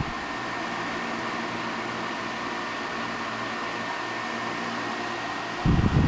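Toastmaster 16-inch oscillating table fan, model 4516, running steadily on high with its oscillator on: an even whir of blade and air noise with a faint steady whine. Near the end a gust of low rumbling buffeting starts as the fan's airflow hits the microphone.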